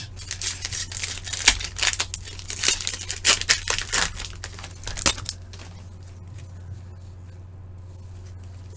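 A hockey card pack's wrapper being torn open and crinkled by hand for about five seconds, then a steady low hum.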